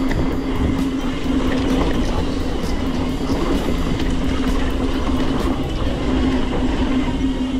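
Mountain bike rolling fast over a rough dirt trail: a steady rumble of the tyres with constant rattling and clatter from the bike.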